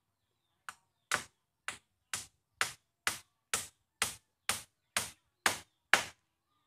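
Hammering at a bamboo frame joint: a dozen sharp strikes at an even pace of about two a second, the first light and the last the loudest.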